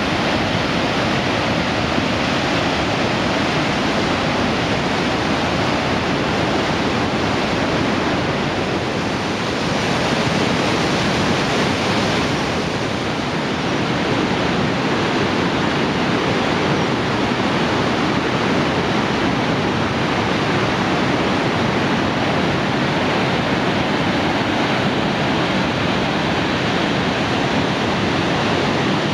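Loud, steady rush of whitewater as a fast, swollen mountain river pours over and around boulders.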